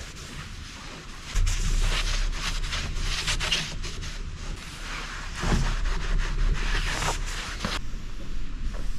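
Cloth rubbing over the smooth, hard epoxy surface of a river table in uneven wiping strokes, a rough hiss, over a low rumble that sets in about a second in.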